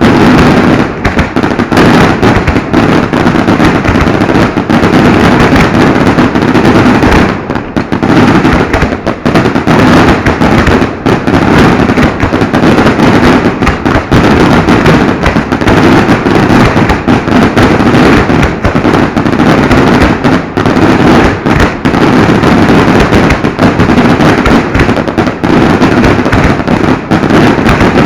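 Fireworks going off at close range in a dense, unbroken barrage, the bangs packed too tightly to count and loud enough to push the recording near its limit throughout.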